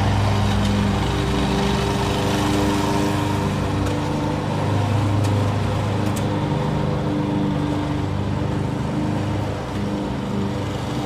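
Lawn mower engine running steadily with an even hum, its note swelling and easing slightly.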